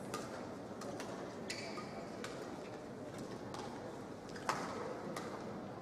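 Badminton rackets striking a shuttlecock during a rally: several sharp hits spread irregularly, some with a short ringing twang of the strings, the loudest about four and a half seconds in, over steady indoor hall noise.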